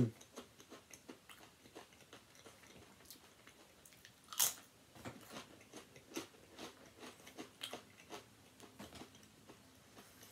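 A person chewing a mouthful of food close to the microphone: a string of faint, wet mouth clicks, with one sharper, louder click about four and a half seconds in.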